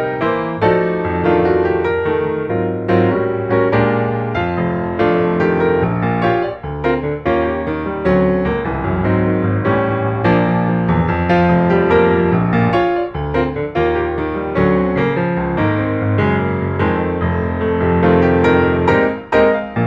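Background music led by piano: a steady run of notes and chords.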